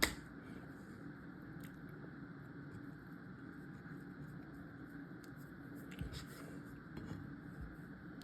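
Quiet handling noise while sticky sourdough is eased out of its container onto a floured counter. A sharp click comes right at the start, then a faint steady hum and a couple of soft bumps about six and seven and a half seconds in.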